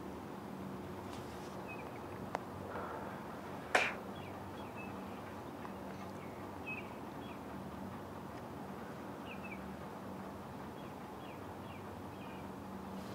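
Outdoor ambience with faint bird chirps recurring over a steady background hum, and two sharp clicks, the louder about four seconds in.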